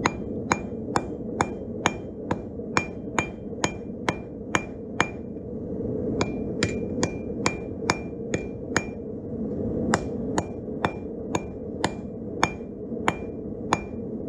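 Hand hammer striking hot steel on a 65 lb Vevor anvil in steady blows, a little over two a second, each with a short bright ring, drawing a leaf blank out thinner. The blows stop for about a second, about five seconds in, then carry on, over a steady rushing noise.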